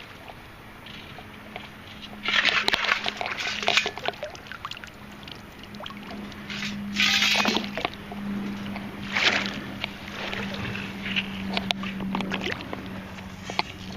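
Metal-detecting sand scoop digging into wet ground and water, a few short splashing scoops with pauses between them, the biggest about two, seven and nine seconds in.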